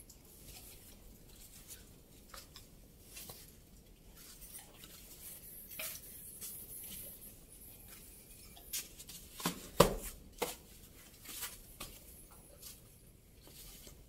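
Footsteps on a loose rocky cave floor: scattered clicks and knocks of stones shifting underfoot, with a cluster of louder knocks a little before ten seconds in.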